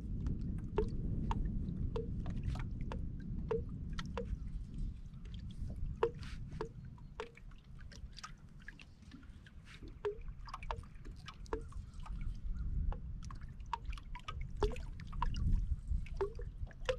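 Small waves lapping against a bass boat's hull, with many short, irregular clicks and ticks over a steady low rumble.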